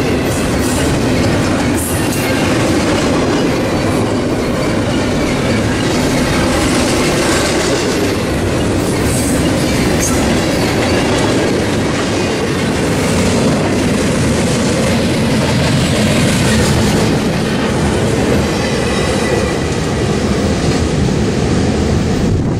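CSX double-stack intermodal freight train passing close by: its well cars run past in a loud, steady rumble, with sharp wheel clicks over the rail joints and a thin, high wheel squeal at times.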